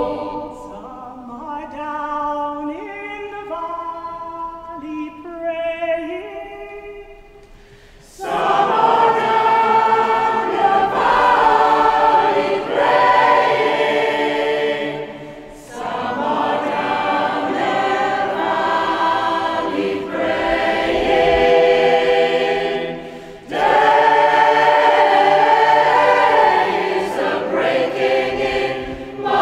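Mixed community choir singing a cappella in a cathedral. A single female voice sings the first phrase alone, and about eight seconds in the full choir comes in loudly, pausing briefly between phrases twice.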